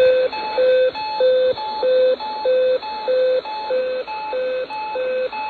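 Electronic alert alarm of the kind a weather radio or EAS receiver sounds before a warning message: a buzzy two-note tone that alternates low and high, about one and a half low-high cycles a second.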